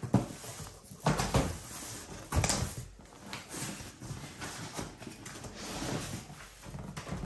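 Cardboard shipping box being opened by hand: the flaps rustle, scrape and flex in several short bursts, the loudest about a second and about two and a half seconds in.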